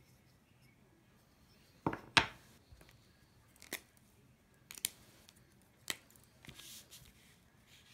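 Small handling sounds on a craft desk: about five short, sharp clicks and taps, the loudest about two seconds in, and a brief rustle near the end, as hands move about a card and craft items on a grid mat.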